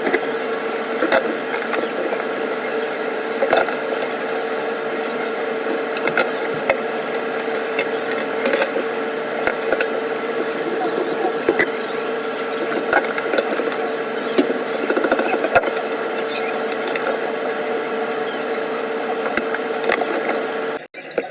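A small motor or fan running steadily with a constant hum, with scattered light clicks and clatter over it; it cuts off abruptly near the end.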